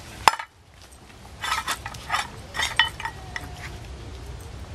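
A metal muffin tin set down with a sharp clack on concrete, then several short clinks and rattles as a dog noses tennis balls out of its cups to reach the treats hidden beneath them.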